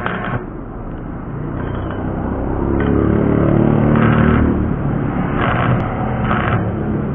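Stick-welding arc crackling in several short bursts from about four seconds in as the rod tacks a square steel tube joint, over a low engine rumble from a passing motorbike that swells around the middle.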